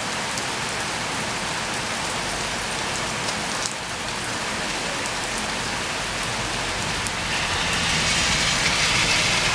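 Heavy rain pouring down, a steady hiss of drops hitting the ground; it grows louder about seven seconds in.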